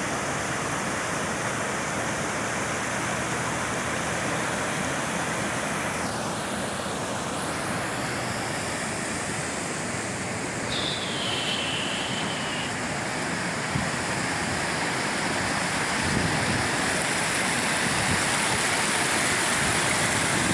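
Flood-swollen river after heavy rain, fast water rushing in a steady, even noise. A brief high tone that falls slightly sounds about halfway through.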